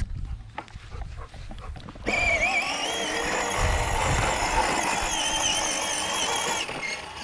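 Electric drive motor and plastic gearbox of a Power Wheels ride-on quad running on an 18-volt Ryobi battery turned up to full. Its high whine starts suddenly about two seconds in, rises as it spins up, wavers in pitch, and stops shortly before the end.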